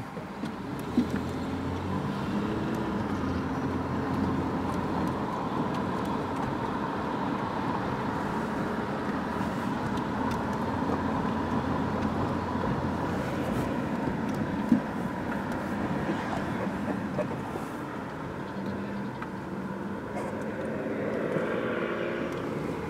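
Car cabin noise while driving slowly: steady engine hum and tyre noise, the engine note shifting a little, with a couple of short clicks about a second in and about fifteen seconds in.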